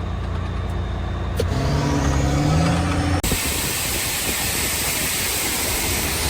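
Loaded grain truck's engine running, then climbing in pitch as it accelerates under the heavy load. A little over three seconds in, it breaks off abruptly into a steady, dense noise.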